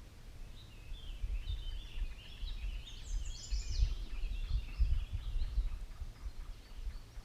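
A bird singing a long, choppy chattering song of quick high notes, loudest in the middle, over a low rumbling noise.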